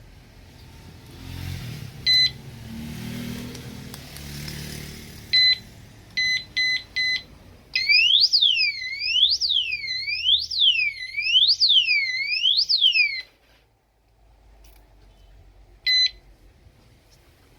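Motorcycle disc-brake lock alarm: a single short beep, then a quick run of four beeps, then a loud siren that sweeps down and up in pitch over and over for about five seconds before cutting off. One more short beep follows near the end, over a low rumble.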